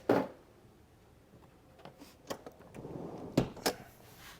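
Hard plastic interior trim cover being handled and fitted: a sharp knock right at the start, then scattered clicks and knocks, two sharper ones in quick succession past the middle.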